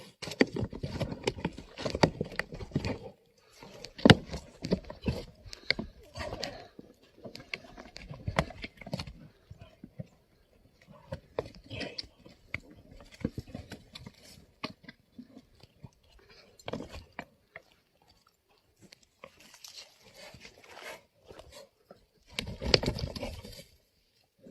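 Yak horns clicking, knocking and scraping together as two yaks clash, in irregular flurries of sharp clicks. The heaviest clashes come in the first few seconds, about four seconds in, and again near the end.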